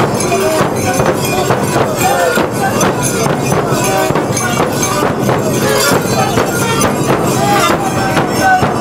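Large bass drums beaten in a steady rhythm, with bells jingling and voices shouting over them: the street music of a masked winter-custom dance.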